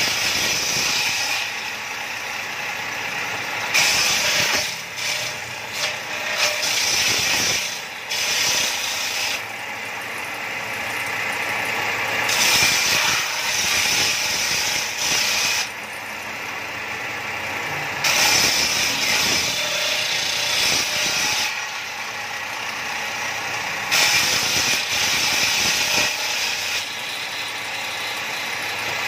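Bench-mounted circular table saw ripping wooden boards. The cutting noise swells each time a board is pushed through the blade, about every six seconds, and falls back to the saw's steady running in between.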